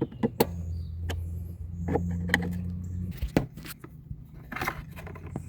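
Cordless power drill/driver running steadily for about three seconds while turning one of the cover bolts, with sharp clicks of the tool and bolt before and after.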